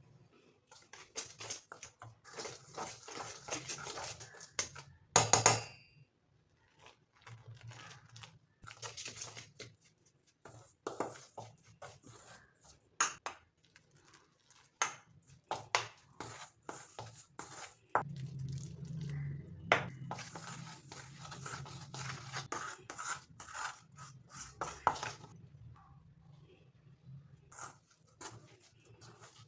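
Kitchen utensils and containers being handled: scattered clinks, knocks and scrapes, with a louder clatter about five seconds in, over a faint low hum.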